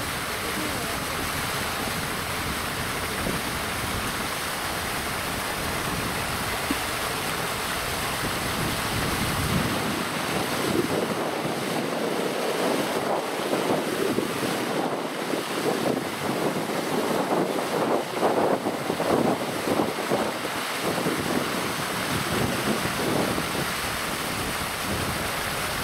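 Steady rushing noise of wind on the microphone mixed with splashing water. It grows louder and more uneven for about ten seconds in the middle.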